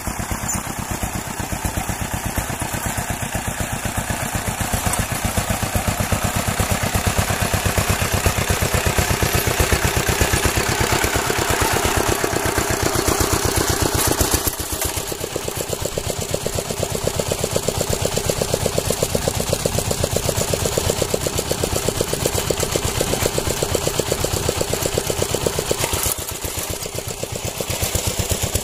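An engine running with a steady, rapid pulsing, its note changing and easing slightly about halfway through.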